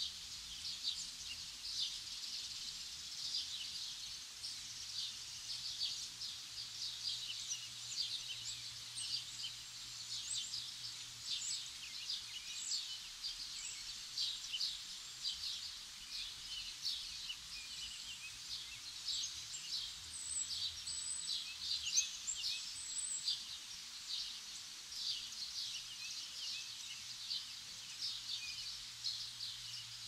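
Many small birds chirping and calling at once in a dense, continuous spring woodland chorus of short high notes, over a faint even background hiss.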